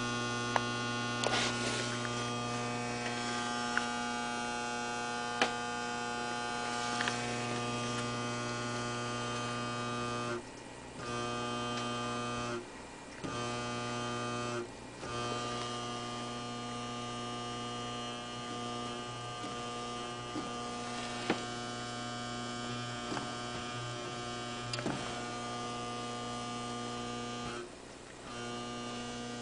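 Brand-new desktop PC giving off an abnormal steady low buzz from a vibrating case. The buzz cuts out briefly four times and comes back each time, as it does when the front of the case is pressed by hand and then let go.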